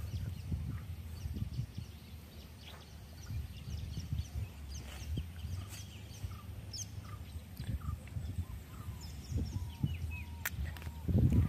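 Birds chirping and calling in short, scattered notes over a low, irregular rustling noise.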